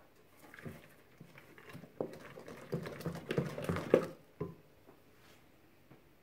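Wooden spoon stirring thick cake batter with chopped walnuts in a glass bowl: soft scraping and irregular knocks of the spoon against the glass, busiest from about two to four and a half seconds in.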